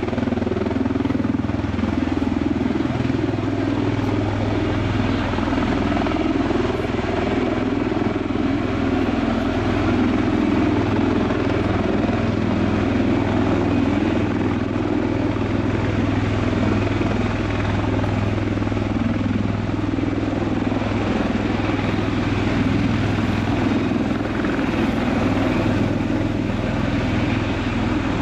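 MV-22 Osprey tiltrotor hovering in helicopter mode, its two proprotors and turboshaft engines giving a loud, steady, deep drone that does not change.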